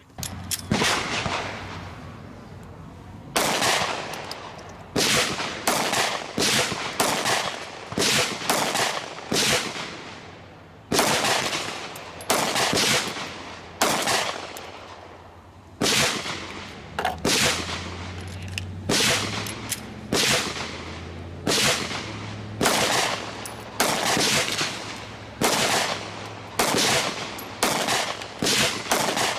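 Semi-automatic gunshots in a long string, about one to two a second with a few short pauses, each shot sharp and followed by an echo.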